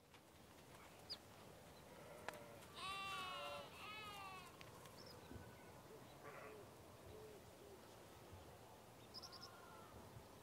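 Quiet open-air ambience with a few short bird chirps, and a high, wavering call in two parts about three seconds in, with a fainter similar call near the end.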